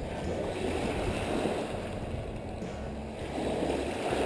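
Shoreline ambience: small waves washing at the water's edge and wind, with a low steady hum underneath.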